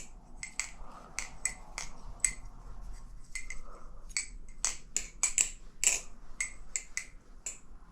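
LDY Corvus balisong (butterfly knife) being flipped: an irregular run of sharp clicks and clacks as the handles swing around the pivots and knock together.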